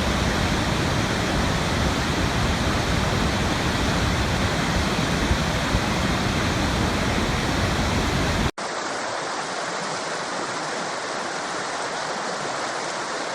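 Waterfall rushing steadily, with a deep rumble under the hiss of falling water. About two-thirds of the way through it cuts abruptly to a second, slightly quieter waterfall recording with much less low rumble.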